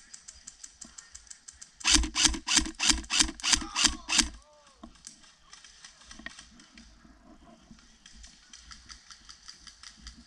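Airsoft guns firing. About two seconds in comes a quick run of about ten loud, sharp shots, roughly four a second. Fainter, faster ticking of more distant fire runs on underneath.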